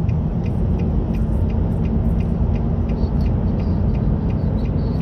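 Steady low rumble of a motor vehicle running on the road, engine and road noise together, with a faint regular ticking about three times a second.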